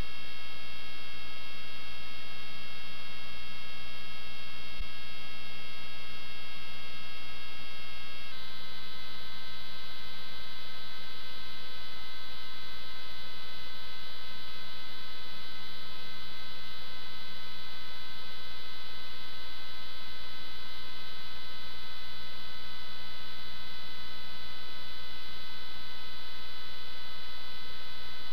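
Steady electrical hum with several high whining tones on the sewer inspection camera's audio track, the tones stepping slightly lower in pitch about eight seconds in.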